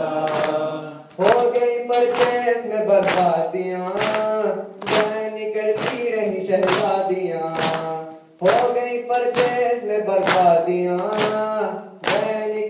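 A noha (Shia lament) sung by male voices over rhythmic matam chest-beating, the slaps landing about twice a second on the beat. The singing breaks off briefly between lines, about a second in and again about eight seconds in.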